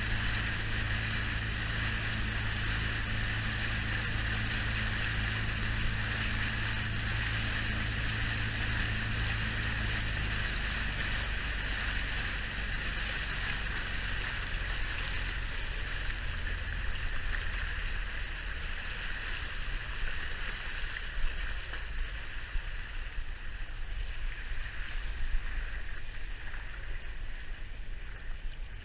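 An inflatable tender boat's outboard motor running under way, with spray and water rushing along the hull and wind on the microphone. The engine note drops about a third of the way in and again past halfway as the boat slows. The water sound then turns into uneven splashes and slaps.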